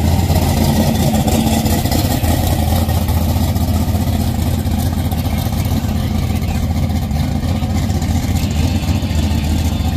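A first-generation Chevrolet Camaro's engine and exhaust rumbling steadily as the car drives past and away down the street.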